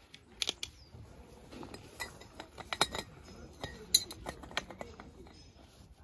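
Irregular clinks and knocks of small hard objects being handled, such as dishes and utensils set down and moved about, the sharpest about four seconds in.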